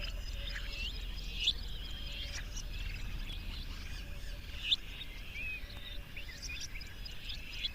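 Several birds chirping and calling in short, quick notes that overlap, with two louder sharp chirps about a second and a half and nearly five seconds in, over a low steady rumble.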